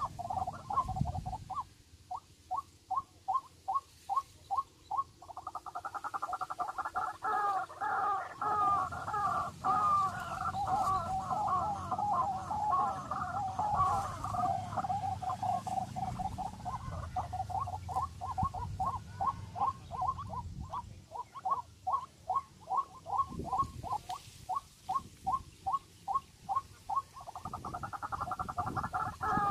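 Bird calling: runs of short, rapid repeated notes, about four a second, alternating with stretches of continuous chattering.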